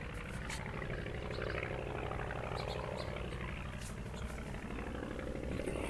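Steady low rumble of wind buffeting the camera microphone, with a few faint clicks.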